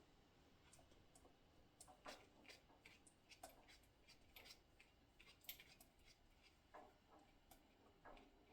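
Faint, scattered clicks and light knocks of a Stoewer portable typewriter being handled and put back together.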